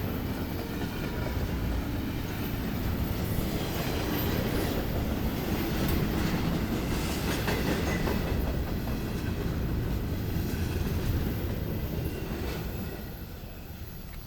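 Norfolk Southern freight train's cars rolling past with a steady rumble and wheels clacking over the rail joints, dying down near the end as the train passes.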